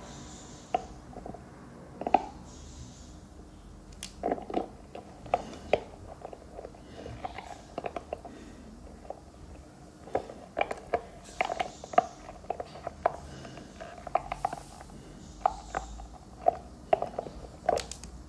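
Pit bull chewing on a spiky rubber ball toy: irregular short squeaks and clicks of the rubber under its teeth, coming in quick clusters.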